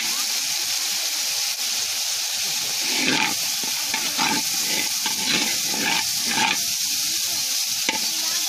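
Spice paste and powdered fish masala sizzling in hot oil in a large cast-iron karahi, with a long-handled metal spatula scraping across the pan in strokes about once a second from about three seconds in.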